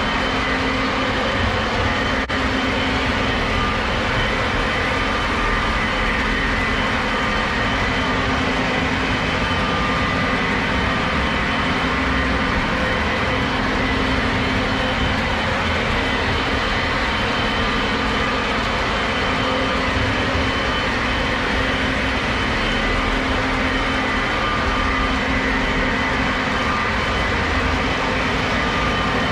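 Several Lionel O gauge model trains running at once: a steady rumble of wheels on track and motors, with a few faint steady whining tones over it.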